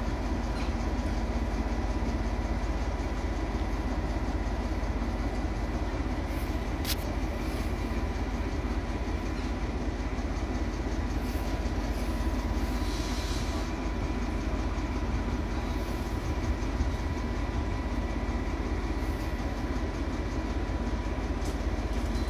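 British Rail Class 14 diesel-hydraulic locomotive D9525's engine running steadily: an even low rumble with a thin, steady whine over it. A single sharp click comes about seven seconds in, and a short hiss a few seconds later.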